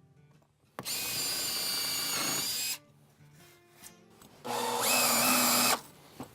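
Power drill running in two bursts, about two seconds and then about one second long, with a steady high whine; the second burst steps up in pitch as the motor speeds up. This is typical of boring pilot holes or driving screws into a wooden board.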